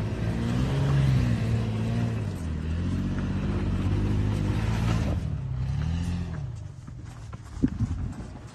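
Toyota Land Cruiser Prado engine revving up and down under load as the SUV climbs a steep, rutted dirt slope. The engine note drops away about six and a half seconds in, and there is a single sharp knock shortly before the end.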